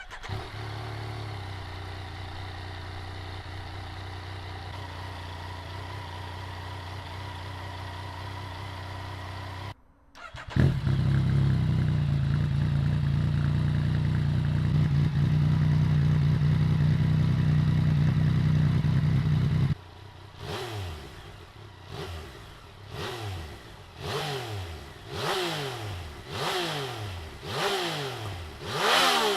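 2014 Yamaha FZ-09's three-cylinder engine idling steadily. After a brief cut a second, much louder idle follows, then repeated throttle blips about once a second, each rev rising and falling. The bike is heard through stock and Two Brothers S1R full-system exhausts in turn.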